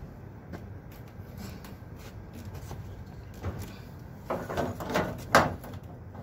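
PVC pipe being worked into its fitting by hand: light scrapes and knocks, a cluster of scraping about four and a half seconds in, and a sharp knock just after five seconds.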